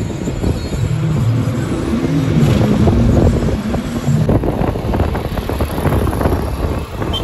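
A truck's engine and road noise on the move, the engine note rising and falling.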